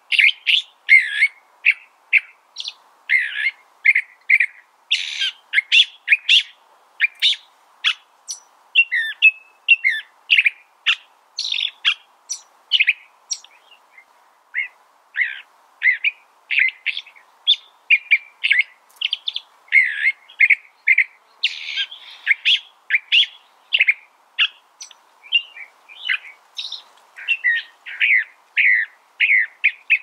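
California thrasher singing: a long, rambling run of short, varied phrases, about two or three a second, with a brief lull about halfway through.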